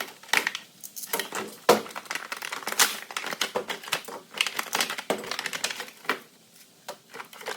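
A garage-door safety sensor kit's packaging being opened and its parts handled: rapid clicks, rattles and crinkling of plastic and cardboard, with a quieter spell near the end.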